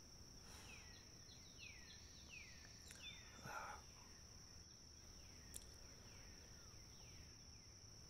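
Faint outdoor ambience: a steady high insect drone, with a bird repeating short falling chirps about twice a second.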